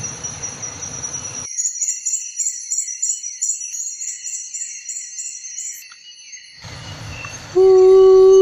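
Night insect chorus of crickets with a steady high trill, then from about a second and a half in a high pulsing insect call repeating about three times a second. Near the end a loud steady held musical note comes in over it.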